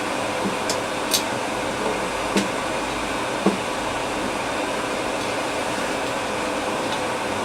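Steady fan-like whooshing room noise, with four light clicks of small metal parts and tools being handled during printer assembly.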